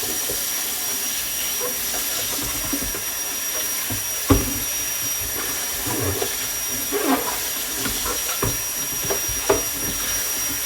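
Dishes being washed at the sink: scattered clinks and knocks of a container and spoon being handled, the loudest about four seconds in, over a steady rushing hiss.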